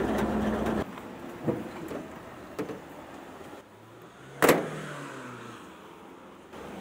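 Cab noise of a 1941 Ford pickup on the move, its flathead V8 running under road noise, cutting off abruptly under a second in. Then a much quieter stretch with a couple of light taps and one sharp knock with a short ring about four and a half seconds in.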